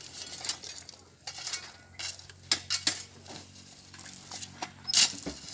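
Steel rebar clinking and clanking against the steel pins of a wooden bending jig as stirrups are bent by hand with a bending bar. The knocks come irregularly, the loudest about five seconds in.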